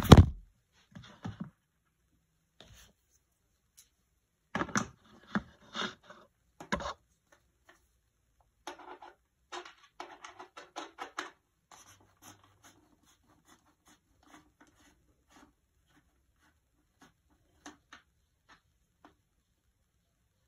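Hands undoing the plastic canopy of a UDIRC RC speedboat: a loud knock at the very start, then bursts of plastic clicks, scrapes and rubbing that thin out to scattered faint ticks after about twelve seconds.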